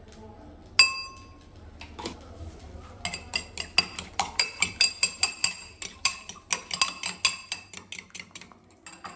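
A metal fork beating an egg in a glass bowl, clicking against the glass about four times a second. About a second earlier there is one loud, ringing clink.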